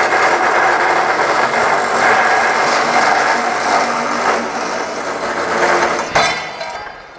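Brobo S400B cold saw's geared head running, its circular blade cutting through a steel bar with coolant on the blade: a steady dense grinding with a steady hum under it. About six seconds in the sound ends with a sharp knock and then dies away as the saw winds down.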